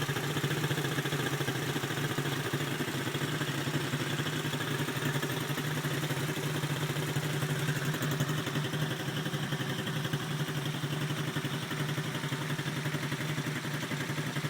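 Two small four-stroke pit bike engines, a 90cc and a 70cc TDR, idling steadily together.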